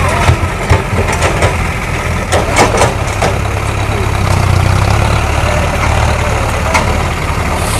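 Tractor diesel engine idling with a steady low hum, with a few sharp knocks and clatters in the first three seconds.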